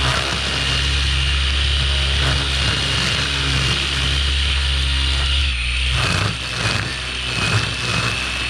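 String trimmer running at speed, its line head spinning and cutting grass with a steady motor note and high whine. About six seconds in the note drops and the sound turns into short, uneven bursts of line whipping through grass.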